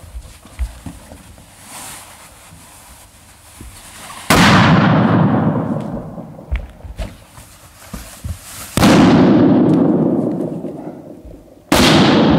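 Three loud balloon pops, about four seconds apart, as large latex balloons are hugged until they burst; each bang rings on in a long, fading echo from the hall. Between the pops, quieter rubbing and small knocks of balloons being handled.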